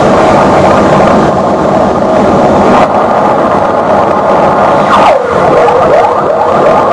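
Live harsh-noise performance on electronics: a loud, dense wall of distorted noise. About five seconds in, a siren-like tone dives in pitch and then wavers back up through the noise.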